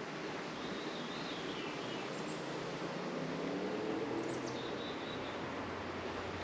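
Honey bees buzzing around an open hive, their wavering hum drifting in pitch as individual bees fly past. A few faint bird chirps come in, once about half a second in and again about four seconds in.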